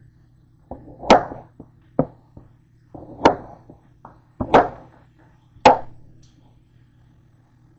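Chef's knife chopping through peeled cantaloupe onto a cutting board: five main chops about a second apart, with smaller knocks between.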